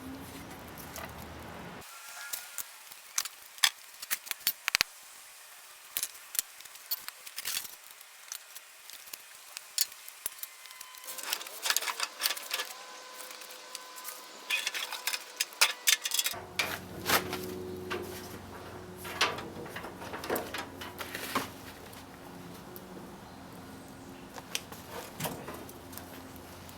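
Scattered sharp metallic clinks, taps and knocks, as of tools and metal parts being handled and set down, over a faint background hum.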